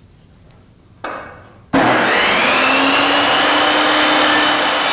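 Benchtop table saw switched on a little under two seconds in: the motor comes up to speed with a rising whine, then runs steadily at full speed.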